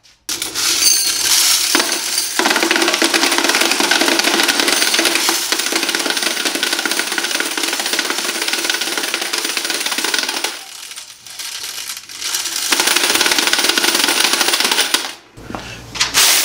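Quarters poured into an electric coin counter and rattling steadily through it as it runs, with a lull of about two seconds just after the middle. The sound stops about a second before the end.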